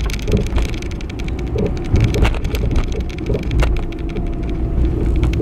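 Road noise inside a slowly moving car: a steady low rumble from tyres and engine, with many small ticks and crackles throughout.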